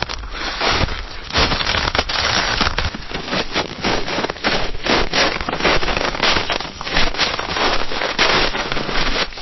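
Footsteps crunching through snow: a dense run of short, crisp crunches, one after another without a break.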